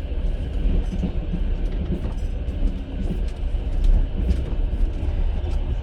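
Passenger railway carriage heard from inside while the train runs: a steady low rumble of wheels on rails and carriage noise, with scattered sharp clicks and knocks.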